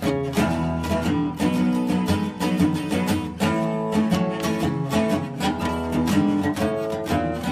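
Background music led by a strummed acoustic guitar with a steady rhythm.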